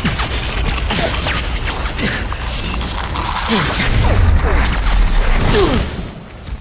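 Designed wand-spell sound effects from a magic duel: a dense crackle of sparks with several falling whooshes over a heavy low rumble. The sound fades out near the end.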